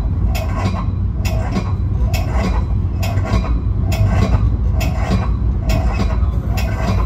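Deep rumble of a train, with a bell clanging steadily about twice a second.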